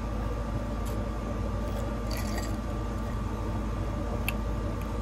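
Steady low background hum. Over it, faint clinks of ice in a glass jar of sparkling water as the jar is lowered and set down, about two seconds in, and a sharper small click a little past four seconds.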